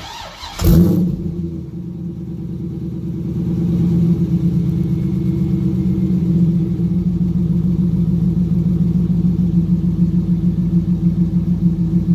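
A C5 Corvette Z06's LS6 V8 is cranked by the starter and fires with a loud flare a little under a second in. It settles into a steady cold-start idle through the tailpipes, growing louder over the next few seconds, then holding.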